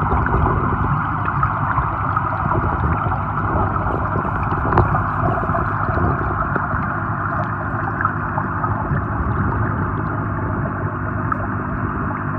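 Steady gurgling water noise with a low hum, heard through a camera submerged in a koi pond, with one brief knock near the middle.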